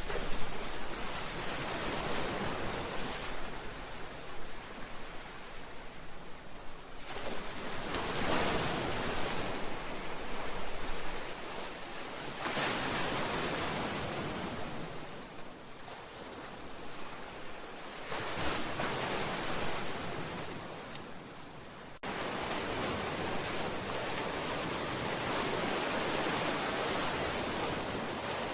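Sea waves washing against a seawall and breakwater: rushing surges that swell and fall back every few seconds, giving way to a steady, even rush about two-thirds of the way through.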